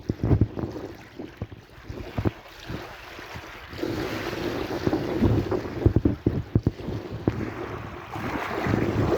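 Sea waves washing in, swelling about four seconds in and again near the end, with wind buffeting the microphone in low thumps.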